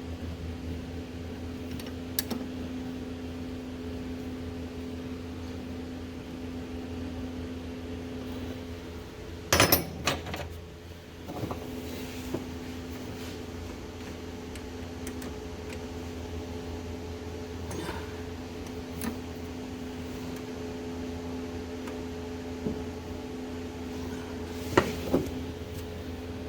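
Hand wrench clinking against metal a few times, loudest about ten seconds in and twice near the end, while the new starter's mounting bolts are tightened. A steady hum with two low tones runs underneath.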